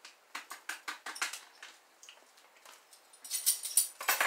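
Metal measuring spoons on a ring clicking and clinking in quick light taps, then a louder scratchy rustle near the end.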